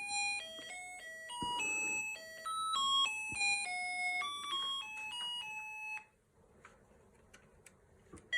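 Snap Circuits sound-activated circuit playing an electronic beeping tune through its small speaker: a quick run of single pure-toned notes. The tune stops about six seconds in and starts again near the end.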